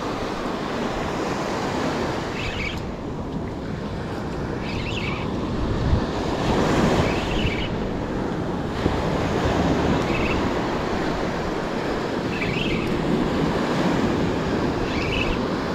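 Ocean surf washing in and out around the angler's legs at the water's edge, swelling and easing, with wind rushing on the microphone. A faint short high sound recurs every two to three seconds.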